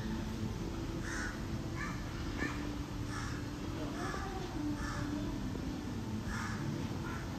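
Crows cawing repeatedly, short harsh calls roughly once a second, over a steady low background rumble.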